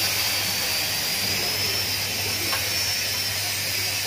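Drum coffee roaster running: a steady rushing of its fans with a low motor hum and a thin high whine, as roasted beans are dumped from the drum into the stirring cooling tray.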